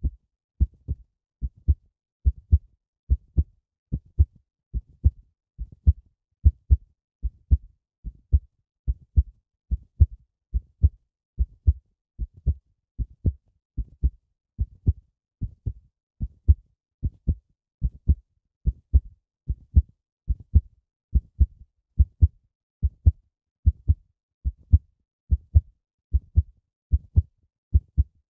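Heartbeat sound: a steady double thump (lub-dub) repeating a bit more than once a second, low and even.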